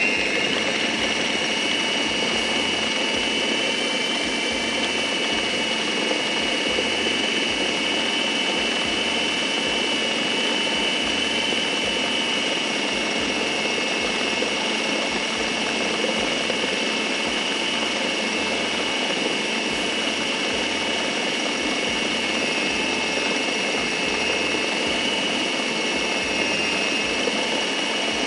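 Electric food chopper running without a break, grinding chicken mince with bread into kofta paste. Its motor whine rises briefly as it spins up at the start, then holds steady.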